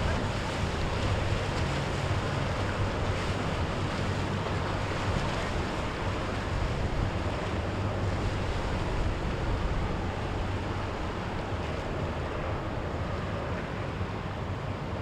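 Wind buffeting the microphone over waves washing and breaking, steady throughout, with a low steady rumble underneath.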